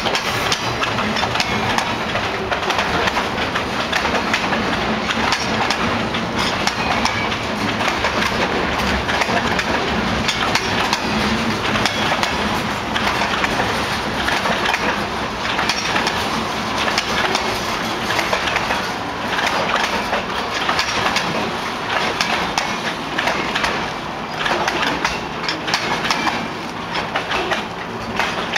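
Loaded freight cars rolling past: wood-chip gondolas, then centerbeam flatcars stacked with lumber. Their wheels give a steady rumble with many clicks and clacks over the rail joints, easing a little near the end as the train's tail approaches.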